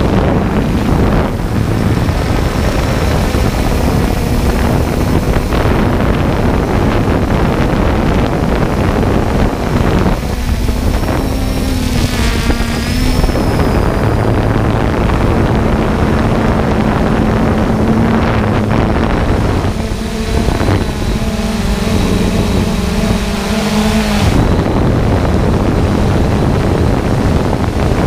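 Multirotor drone's motors and propellers heard through its onboard camera: a loud, steady rush of prop wash and wind on the microphone. A motor hum rises out of it and shifts in pitch twice, about a third of the way in and again past the middle.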